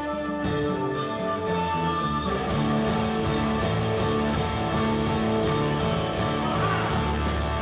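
Rock band playing live: an electric guitar through Marshall amplifiers leads with held, sustained notes over electric bass and drums.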